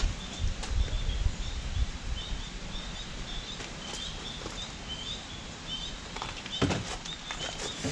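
A small bird chirping over and over in short high notes, over a low rumble in the first couple of seconds, with a few sharp knocks near the end.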